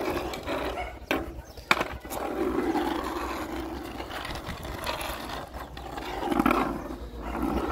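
Skateboard wheels rolling and scraping on asphalt as a Rottweiler mouths and drags the board, with a couple of sharp knocks of the board against the ground in the first two seconds. A low growl from the dog comes and goes throughout.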